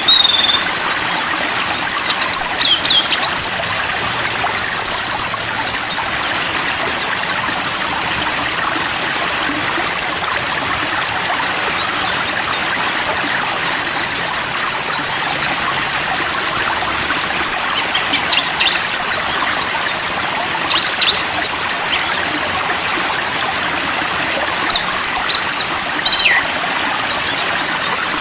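Steady sound of running water with short bursts of quick, high songbird phrases breaking in every few seconds.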